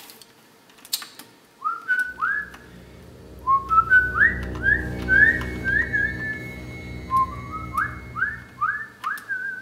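A whistled tune of short notes that swoop upward, played in a few phrases over a low, steady hum, with a few light clicks about a second in.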